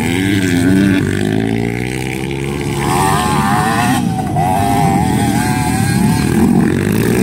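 Several enduro dirt-bike engines revving as riders accelerate through the turns, their pitch climbing and dropping again and again with the throttle.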